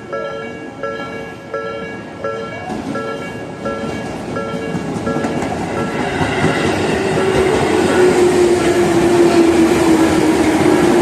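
Level crossing warning bell ringing in an even two-tone beat about every 0.7 s while a Tobu 20000 series electric train comes in. The train's running noise grows louder and covers the bell, with wheel clatter and a whine that falls slowly in pitch as the train slows.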